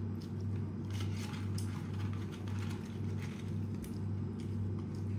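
Soft scattered clicks and crackles of eating: French fries picked up by hand from a plate, a cardboard box touched, and chewing. A steady low hum that swells and fades about twice a second runs underneath and is the loudest sound.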